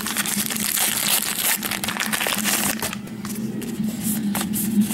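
Baseball trading cards being handled and slid against one another: a dense papery rustle for about three seconds, then a few separate flicks as single cards are moved.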